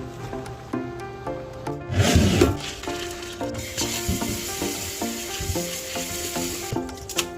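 Light background music with a steady melody, over which a loud rough rubbing noise comes about two seconds in, followed by a steadier scraping, hissing noise from about three and a half seconds until shortly before the end.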